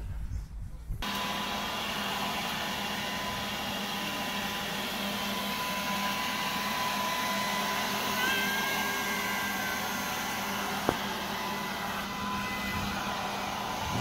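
Small handheld electric leaf blower running steadily, a whirring noise with a fixed high motor whine. About halfway through, a short high-pitched squeal sounds over it for a second or so.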